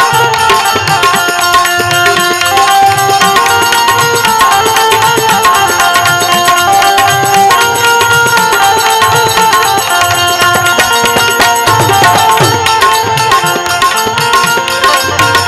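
Instrumental passage of a bhajan: a harmonium playing a held, stepping melody over a steady tabla rhythm.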